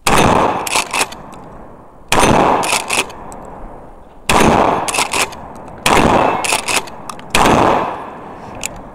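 Shotgun fired five times, a shot every one and a half to two seconds, each shot followed by a few fainter sharp knocks.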